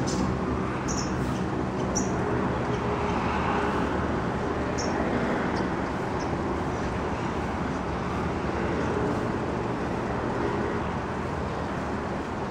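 Steady hum of road traffic with a low engine drone, and a few short, high bird chirps in the first half.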